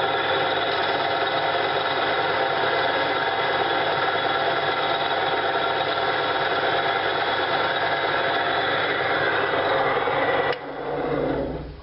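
STD-120 wood lathe running with a 150 mm hook-and-loop sanding disc on the spindle: a steady motor and belt-drive hum with several constant tones. It is switched off about ten and a half seconds in and winds down.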